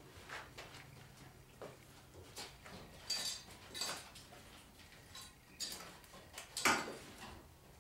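Metal clinks and knocks of objects being handled and set down: about a dozen separate hits, a few of them with a short high ring, the loudest one near the end.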